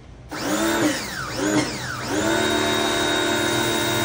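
Small electric pressure washer starting up and spraying: its motor whine rises and falls twice, then settles into a steady whine under the hiss of the water jet.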